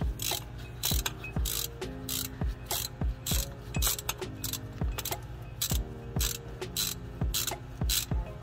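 Background music with a steady beat, about two beats a second. Under it, a socket ratchet clicks as a 10 mm bolt on a diesel fuel filter base is backed out.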